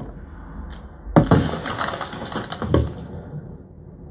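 Two loud rifle shots from a film's war soundtrack, played through a home-theater speaker system: one about a second in and another near the three-second mark. Each has a sharp crack and a long fading echo over a low rumble.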